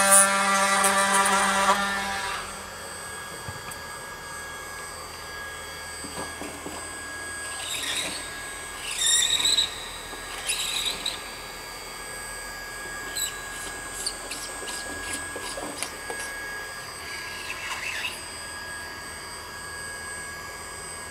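Cordless oscillating multi-tool buzzing as it cuts away shattered plastic along a gouge in a polyethylene boat hull. It stops about two seconds in. After that, a handheld scraper rasps along the plastic in short, intermittent strokes.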